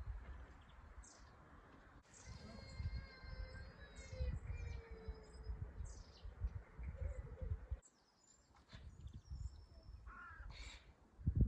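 Outdoor birds calling: a longer crow-like caw with several steady tones starting about two seconds in, and scattered short high chirps, over a low gusty rumble.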